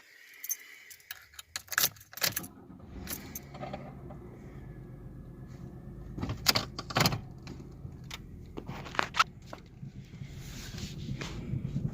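Sharp clicks and metallic jangling, like keys or small hardware being handled, over a low steady hum that sets in about two seconds in.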